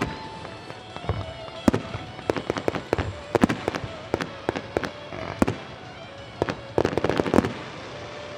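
Large aerial firework shells going off in quick volleys of sharp bangs. The volleys are thickest about two to three seconds in and again near the end, with a short lull between them.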